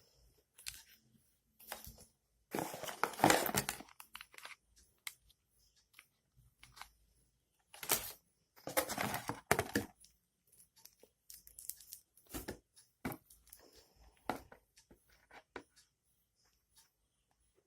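Packaging being handled and torn open: two longer bursts of tearing and crinkling, the first the loudest, with scattered small clicks and taps between them.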